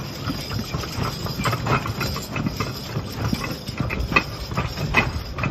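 A team of Belgian draft horses pulling a weighted sled across a dirt arena: irregular thuds and scuffs of hooves digging into loose dirt over the rumble of the sled dragging.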